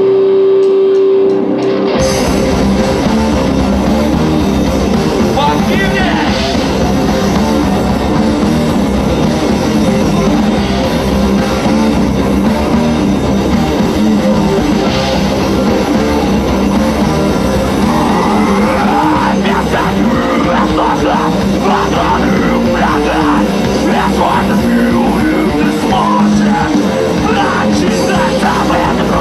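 Live rock band playing loud, heavy rock. A single held note sounds alone at first, then the full band with distorted guitars and drums comes in about two seconds in.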